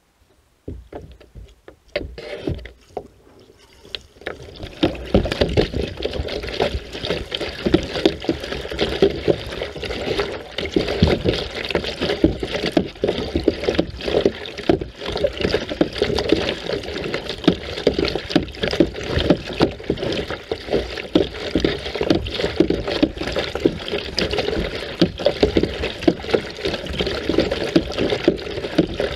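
Water sloshing and splashing close to the microphone as a kayak moves through it at the waterline, a dense irregular wash of small splashes. It is patchy and quieter for the first few seconds, then becomes steady and loud about four seconds in.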